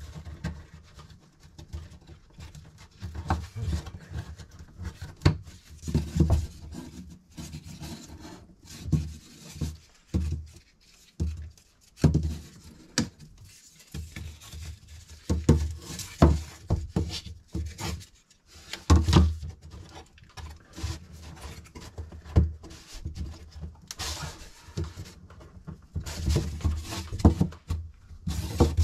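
Thin laser-cut plywood puzzle pieces being slotted and pressed into a wooden frame: irregular small wooden clicks, taps and rubbing as the parts are fitted, with dull knocks as the frame moves against the table.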